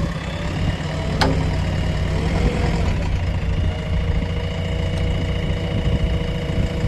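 Heavy diesel machinery engine idling with a steady low rumble, with one sharp click about a second in.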